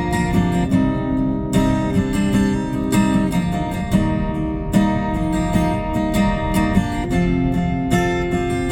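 Instrumental music with strummed acoustic guitar playing through a BMW 840i Gran Coupe's 16-speaker Harman Kardon audio system, heard inside the car's cabin. The strums come in a steady rhythm under sustained notes.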